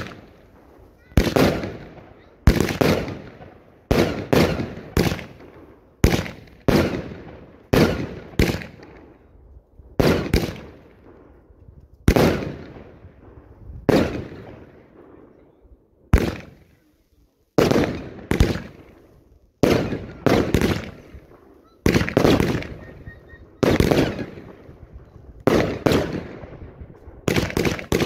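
Aerial fireworks bursting in steady succession: sharp bangs about once a second, some in quick pairs, each trailing off over about a second.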